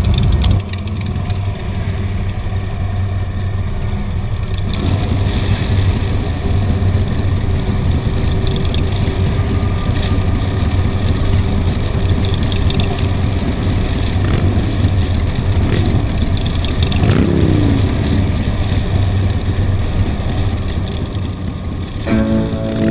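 Motorcycle engine running steadily during the ride, with a brief rise and fall in pitch about three-quarters of the way through. Music starts just before the end.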